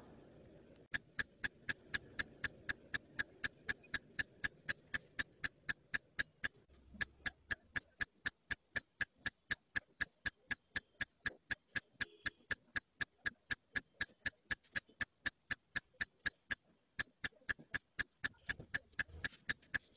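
Steady clock-like ticking laid on as a sound effect, about three to four ticks a second with a short break about three-quarters through.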